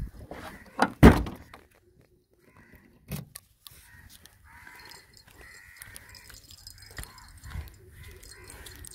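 A car's boot lid slammed shut with one loud thunk about a second in, followed by faint outdoor background.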